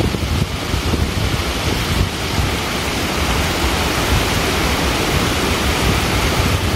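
Small mountain waterfall cascading over mossy rocks: a steady rush of falling water.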